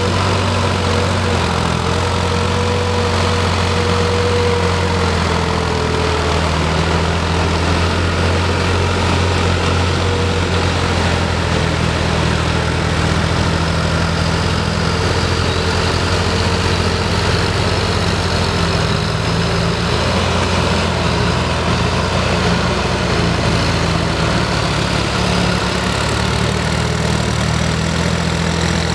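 A farm tractor's diesel engine running steadily at an even pitch, with no revving.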